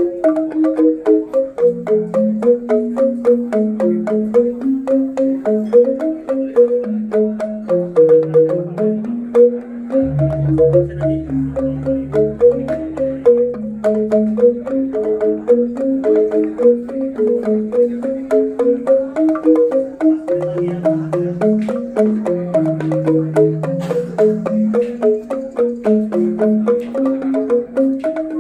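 Balinese rindik, bamboo-tube xylophones played by two musicians, plays a quick, steady stream of interlocking mallet notes: a busy high line over a slower lower melody. About ten seconds in, a low steady hum joins underneath and slowly fades away.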